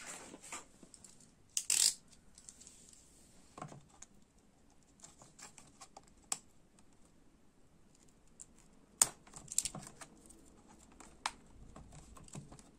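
Scattered small clicks and brief scrapes of hard plastic being handled, as a toy lantern's lid and its fastening are worked at with a utility knife and fingers.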